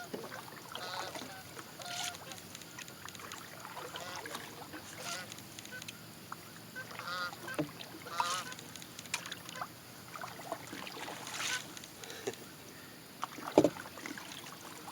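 Canada geese honking in scattered calls as they fly over. A single sharp knock comes near the end.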